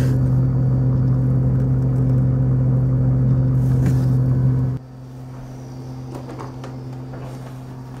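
Steady low electrical hum from a GE Profile refrigerator running. About five seconds in it drops abruptly to a quieter hum of the same pitch.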